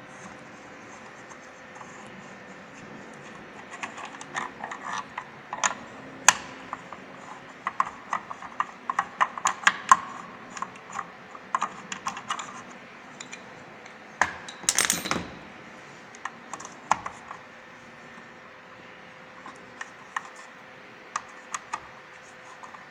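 Irregular sharp clicks and taps of small hard parts being handled, thickest in the first half, with a short scraping rustle about two-thirds of the way in. A faint steady hum runs underneath.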